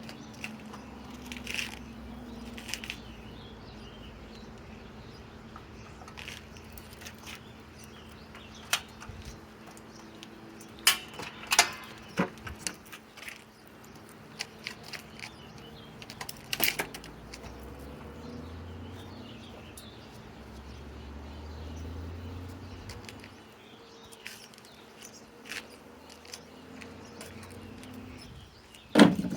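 Scattered clicks and knocks of tools and materials being handled, over a faint steady hum; the drill is not running.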